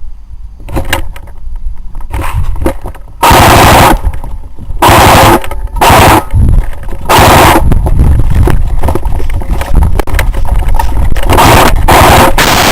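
Airsoft gun firing full-auto bursts at close range: a few single clicks, then four short loud bursts, then long strings of rapid fire through the second half.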